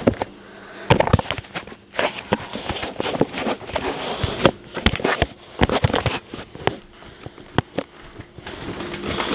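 Handling noise from a handheld camera carried on the move: irregular knocks, clicks and rustles, with footsteps on a wooden floor.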